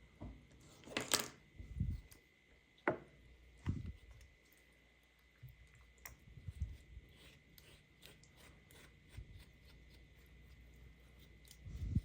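Hands handling toy packaging: scattered soft thumps, light clicks and a brief rustle, over a faint steady high tone.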